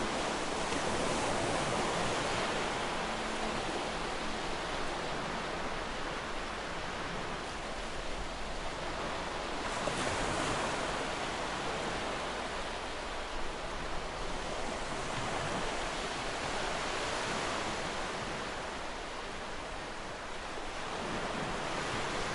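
Soft, steady rushing ambience that swells and eases every several seconds, with no tune or voice.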